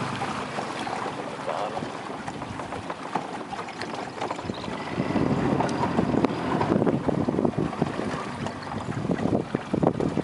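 Wind buffeting the microphone on a boat on open water, rising and falling in gusts, louder again about halfway through and near the end.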